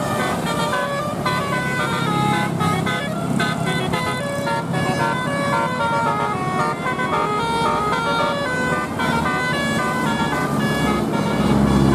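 Bus telolet horn playing a quick tune of stepped air-horn notes over the bus's engine running, the engine growing louder near the end.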